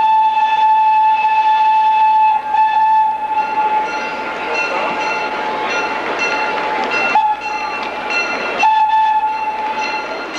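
Train whistle blowing a long, steady single note over the noise of the running train. The whistle breaks off briefly about seven seconds in, then sounds again strongly near the end.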